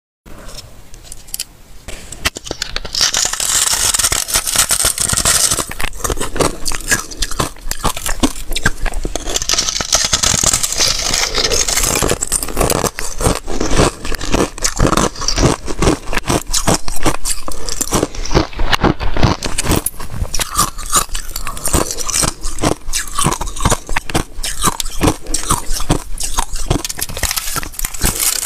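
Thin shards of bottle-frozen ice being broken off the block and crunched between the teeth, close to the microphone: dense crisp crackling and crunching, with two louder stretches of crackle a few seconds in and again around ten seconds in.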